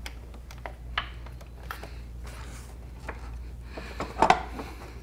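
Plastic front door panel of a Quantum 4Front power chair being handled and pressed back into place: scattered light plastic taps and clicks, with a louder knock a little after four seconds in.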